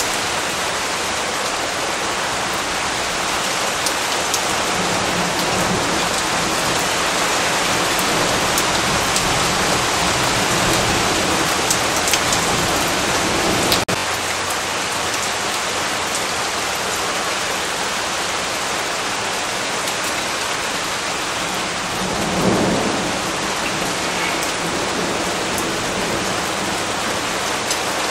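Steady rain falling on a surface, with thunder rumbling in low swells, the loudest about three quarters of the way through.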